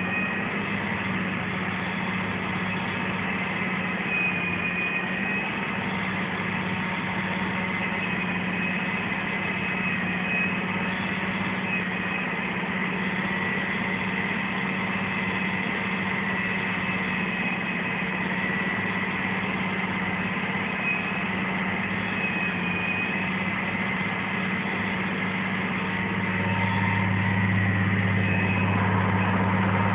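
Vehicle engine running steadily while driving across a tilled field, heard from inside the cab, a low drone with a faint high whine over it; it gets louder a few seconds before the end.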